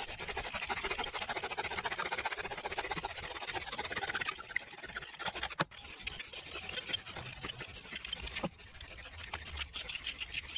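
Bow drill at work: a wooden spindle spun back and forth by a bow, grinding and squeaking in the notch of a wooden fireboard. It is a continuous rapid rasping that breaks off briefly a little past halfway.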